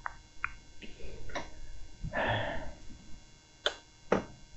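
Light clicks and knocks of plastic parts being handled as a mobility scooter's display panel housing is fitted back onto the handlebar. There is a short rustle about two seconds in and two sharp clicks near the end.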